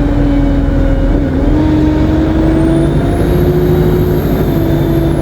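ADL Enviro 200 MMC bus engine running under way, with a steady droning tone that climbs slowly. A thin, very high turbo whine rises about halfway through and begins to fall near the end.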